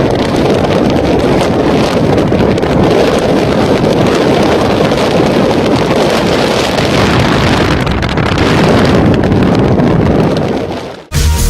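Wind buffeting a microphone: loud, steady wind static. It fades out just before the end, and electronic music starts.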